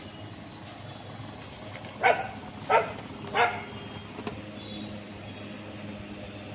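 A dog barking three times in quick succession, about two to three and a half seconds in, over a steady low background hum.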